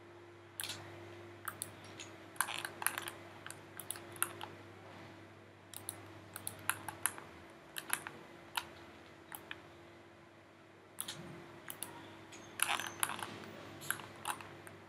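Computer mouse and keyboard clicking in irregular clusters of sharp clicks, with a pause of a second or two past the middle, over a faint steady hum.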